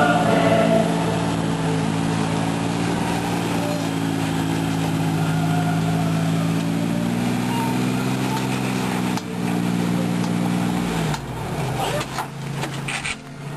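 A Toyota 4Runner's engine running at steady revs under load as the truck crawls up a rock ledge. The note breaks off about nine seconds in, and near the end the revs fall away.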